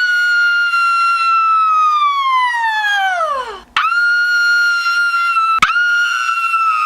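A woman's long, high-pitched scream, held steady and then falling in pitch until it dies away. A second scream follows at once, broken briefly once.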